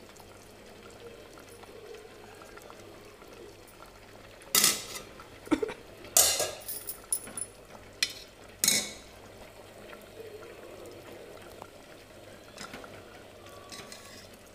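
Steel ladle clinking and scraping against an aluminium pot while stirring curry: a cluster of sharp knocks from about four to nine seconds in, then a few faint ticks near the end.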